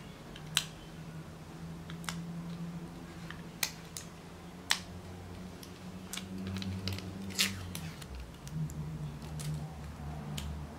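Fingernails picking at a sticker on a small circuit-board module to peel it off: scattered sharp clicks, about five of them louder than the rest, over a steady low hum.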